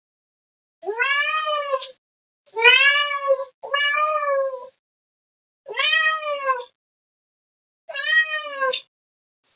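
Domestic cat meowing: five drawn-out meows of about a second each, every one rising then falling in pitch, with silence between them. Two follow back to back near the middle, and another begins just at the end.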